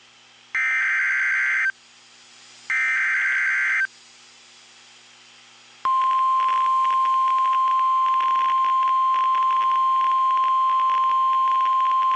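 Two bursts of the Emergency Alert System SAME digital header, a harsh, screechy data tone about a second long each with a one-second gap. About six seconds in, the steady 1050 Hz NOAA Weather Radio warning alarm tone starts and holds. Together they open a new weather alert broadcast.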